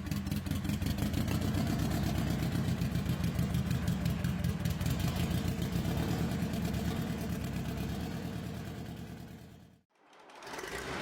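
Krupp M422 four-cylinder diesel engine running steadily, with an even pulsing beat from its firing strokes. The sound fades out about ten seconds in, and a different engine fades in just before the end.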